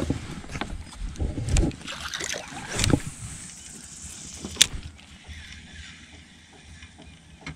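Scattered knocks and clatter of gear being handled aboard a small fishing boat, with a sharp click about four and a half seconds in, then quieter.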